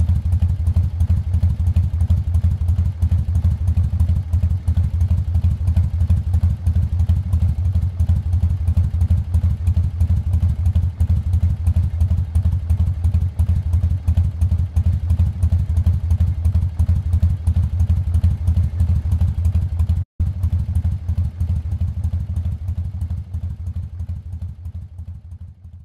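Harley-Davidson Heritage Softail's air-cooled V-twin idling steadily with a fast, pulsing exhaust beat. It breaks off for an instant about 20 seconds in and fades out near the end.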